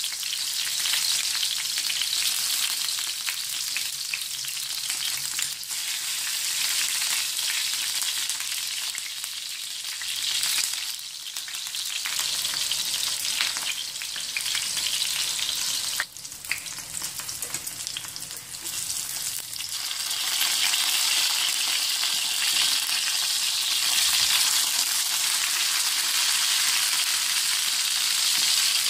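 Oil sizzling around whole tomatoes frying in a pan: a steady hiss that dips briefly about a third of the way in and again a little past halfway, then grows louder for the last third.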